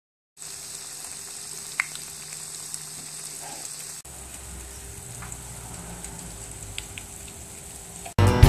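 Breaded pieces frying in hot oil in a pan, a steady sizzle. About four seconds in it cuts to a pot of winter squash chunks cooking in liquid, a steady bubbling hiss with more low rumble.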